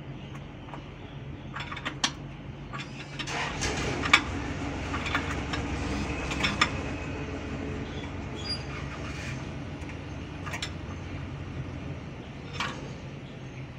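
Scattered sharp metal clinks of a wrench working the release-lever adjusting bolts on a Hino 500 truck's clutch pressure plate, over a low vehicle rumble that swells for several seconds in the middle.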